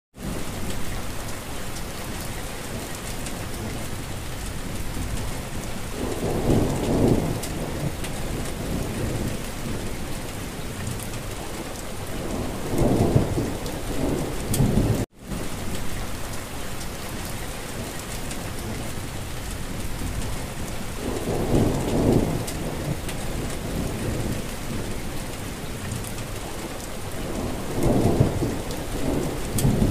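Steady rain with low rolls of thunder swelling four times. The same stretch of rain and thunder repeats after a brief dropout about halfway through.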